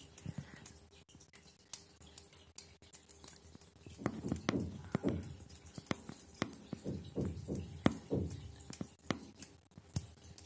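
Irregular small clicks and soft low thuds and rustles, clustered about four seconds in and again around seven to eight seconds: handling noise from the shaky hand-held camera and a hand moving in the wire cage. No calls from the lovebird.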